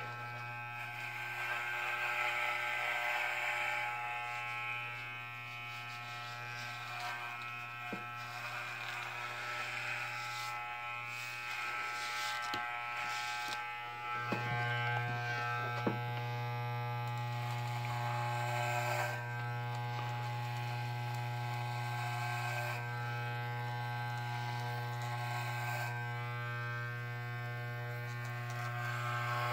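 Electric hair clippers buzzing steadily as they run through short hair. The buzz gets louder about halfway through, with a few light knocks around the middle.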